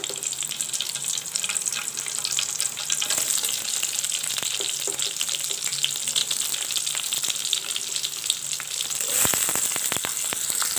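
Fennel seeds frying in hot groundnut oil in a steel kadai: a steady sizzle and crackle that carries on as green chillies and chopped onions go into the oil. A few sharp knocks about nine seconds in.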